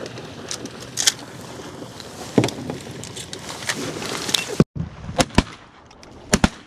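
Sharp clicks and knocks, about seven in all, with two pairs close together in the last two seconds, over a steady outdoor background noise.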